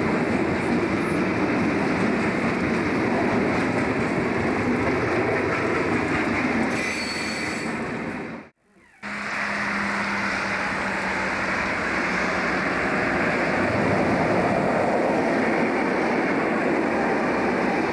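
Freight wagons rolling past on the track close by, a steady rumble and rattle of wheels on rail. First a coal train's hopper wagons pass. The sound then drops out for a moment about halfway through, and afterwards a diesel-hauled container train passes.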